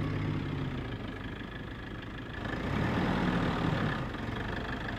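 Toyota HiLux pickup's engine running at low speed as the truck is manoeuvred on grass, getting louder about two and a half seconds in and then easing back.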